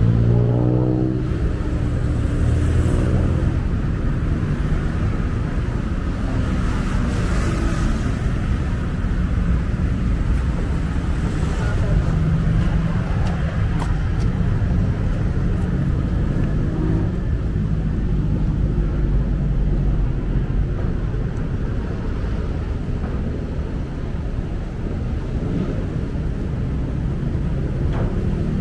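Steady low rumble of city traffic and engines, with one engine's pitch falling over the first couple of seconds.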